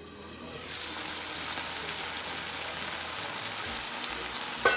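Pork belly, tomato and onion simmering and sizzling in a frying pan as its cooking water boils down: a steady hiss that builds over the first half second. A single sharp knock near the end.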